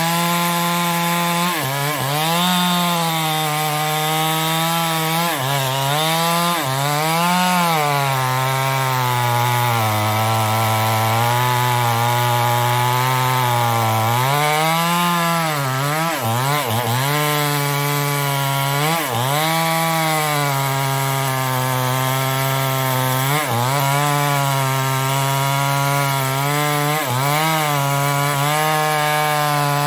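Chinese-made chainsaw cutting through mahogany wood under full throttle, its engine note sagging again and again as the chain loads up in the cut and rising back as it clears.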